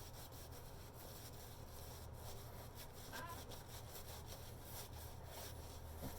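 Faint scraping strokes of an antique C.Mon straight razor shaving over lathered skin, with a steady low hum underneath.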